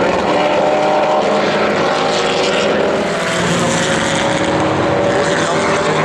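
Formula Vee racing cars' VW Beetle-based flat-four engines running hard at racing speed. More than one engine is heard at once, a steady, loud, buzzing drone.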